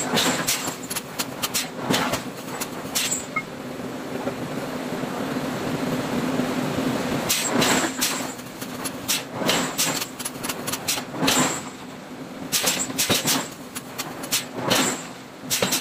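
Hammer blows on hot iron being forged, sharp metallic strikes coming in quick bursts of several a second with a pause of a few seconds between bursts, over a steady machine hum.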